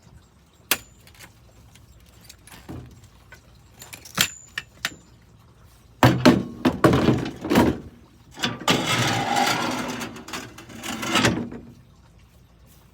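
Gear being handled and loaded: two sharp metallic clinks, then a run of knocks and thumps about six seconds in, followed by about three seconds of scraping and rustling as something is slid into place.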